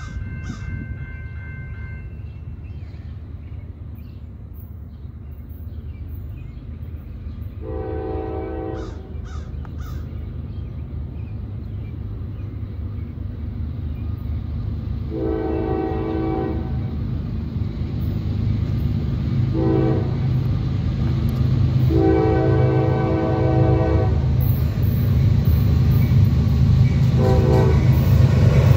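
A CSX freight train's diesel locomotive horn sounding the grade-crossing signal as the train approaches: two long blasts, a short one and a long one, then a brief extra toot near the end. Under it runs the low rumble of the diesel locomotives, growing steadily louder. A crow caws at the very start.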